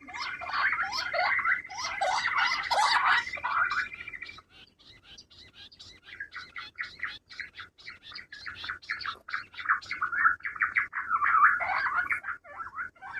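Quails calling: a dense chatter of overlapping chirps for about four seconds, then a quieter run of rapid short chirps that grows louder again in the last few seconds.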